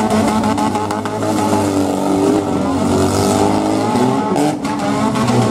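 Engines of several wrecked demolition-derby cars running and revving together, their pitch rising and falling, with a few short knocks about four and a half seconds in.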